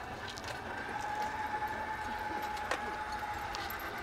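A steady mechanical whine over background hiss, with a few short, light clicks.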